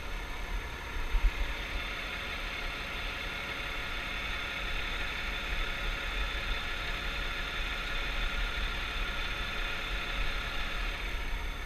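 Valtra 8350 tractor's six-cylinder diesel engine running steadily under ploughing load, with a brief thump about a second in.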